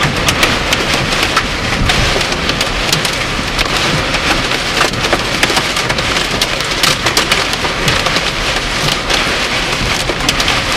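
Heavy thunderstorm rain pouring down, a loud steady hiss dotted with many sharp taps of drops striking a hard surface close by.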